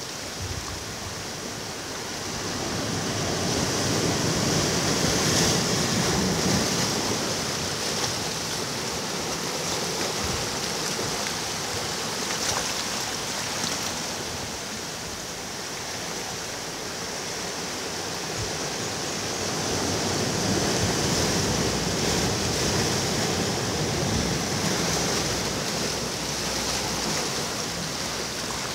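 Ocean surf washing ashore, a steady rush that swells and eases slowly as waves break, loudest about a quarter of the way in and again past two-thirds.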